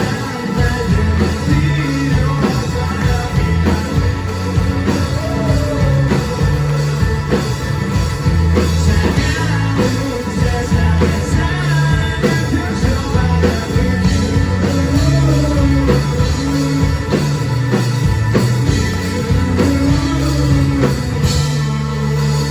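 Rock band playing live, with a singer over the band.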